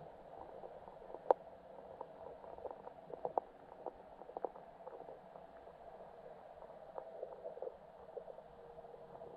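Muffled underwater sound on a lake bed: a steady hum with scattered sharp clicks. One loud click comes about a second in, and bunches of clicks follow in the middle and again near the end.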